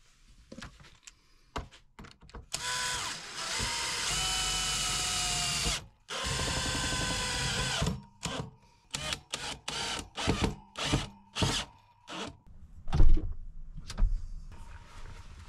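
A power drill running: two steady runs of a few seconds each, then a string of short trigger bursts, with a loud thump near the end.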